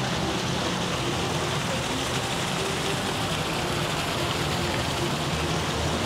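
Steady splashing and hiss of small fountain jets falling into a shallow reflecting pool.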